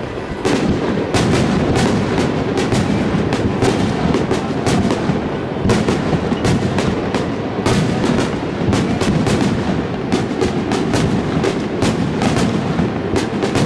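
Aerial fireworks bursting in a rapid, irregular series of sharp bangs and crackles, over music playing. The bursts pick up about half a second in.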